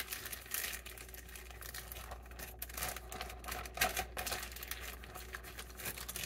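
Plastic zip-top bag crinkling and rustling in irregular crackles as hands handle and mix the buttermilk marinade inside it.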